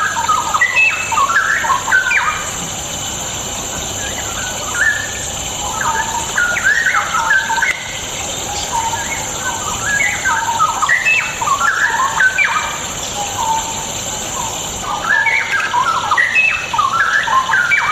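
Straw-headed bulbul singing: bursts of rapid warbling notes jumping up and down in pitch, each a few seconds long with short pauses between, over a steady high hiss.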